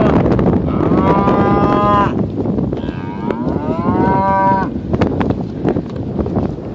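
Cattle mooing while being driven: two long calls, the first about a second in and the second, rising then holding steady, about three seconds in, over steady background noise.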